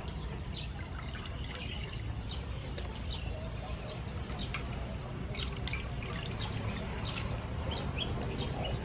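Hands rubbing and swishing squid in a stainless steel bowl of water, with small splashes and drips as the squid is rinsed clean.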